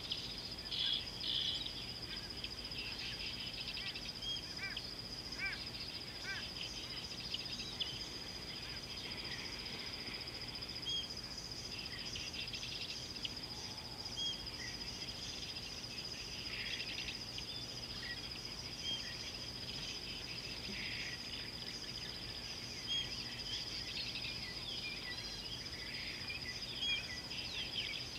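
A steady high-pitched insect drone, with many short bird chirps and calls scattered over it.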